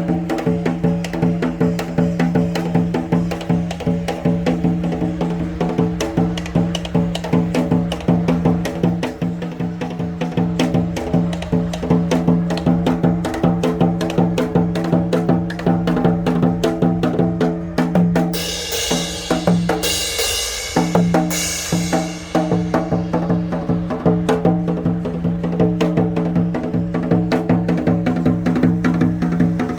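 Janggu, the Korean hourglass drum, played in a fast, steady trot rhythm, with sharp stick cracks and deeper drum strokes, over steady held tones. About two-thirds of the way through, a hissing high wash comes twice.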